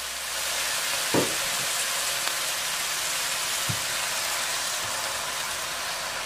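Cubed pork sizzling in hot oil in a stainless steel pot, a steady hiss, with the wooden spatula knocking on the pot about a second in and more faintly a few seconds later as the meat is stirred.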